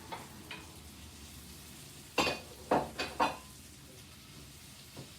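A utensil stirring and knocking against a frying pan of sautéing onions, beans and mushrooms, over a low steady sizzle; four sharp metallic clanks come in quick succession about two seconds in, with a few lighter knocks before and after.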